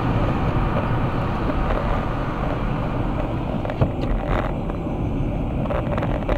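Steady engine and tyre noise inside a car driving on a wet road, with a sharp click just before four seconds in.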